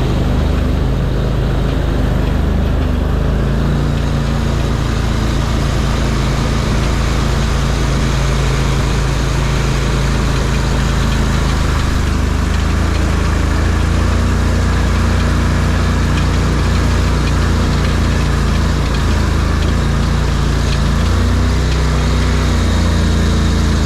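ARGO amphibious 8x8 off-road vehicle's engine running steadily under way, its pitch shifting up and down a few times as the throttle and speed change.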